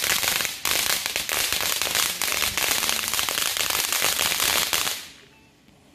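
Ground firework fountain spraying sparks: a dense, loud, rapid crackle over a rushing hiss, dying away about five seconds in.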